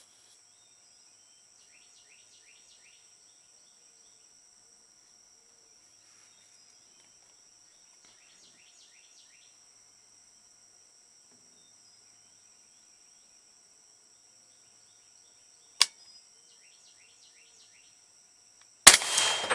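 Steady high insect drone with small birds chirping in short falling runs, a sharp click about three-quarters of the way through, then near the end a single 300 Blackout rifle shot, the loudest sound, dying away over about a second.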